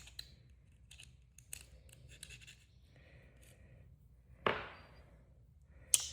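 Light scratching and scraping of a small metal pick working in the joints of a pocketknife, then two sharp metallic clicks about a second and a half apart, the first ringing briefly.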